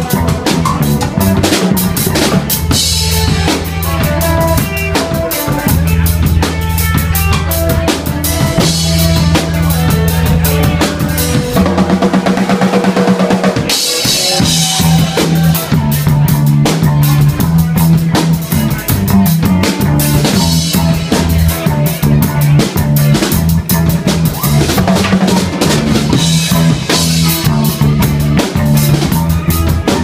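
Live reggae band playing loud: a drum kit with kick, snare and rimshots over electric bass and electric guitar. About twelve seconds in, the bass line drops out for a two-second break, then comes back in.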